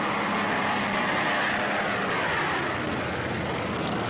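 Propeller fighter aircraft engines droning steadily, with a pitch that slides slowly down through the middle.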